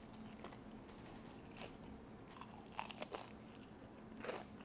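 A person biting into and chewing crispy double-fried Korean fried chicken: faint, scattered crunches, with a louder crunch near the end.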